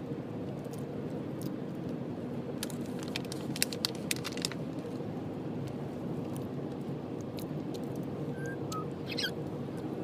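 Sun conure parrot cracking and nibbling pumpkin seeds: a run of sharp clicks a few seconds in, then a brief squeak near the end, over a steady low hum.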